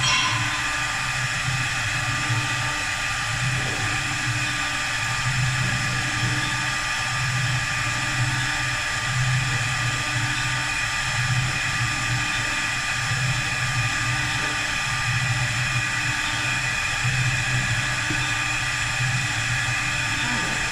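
4-axis CNC wood lathe running and turning wood, a steady machine noise with a high whine and a low hum that swells and fades every second or so.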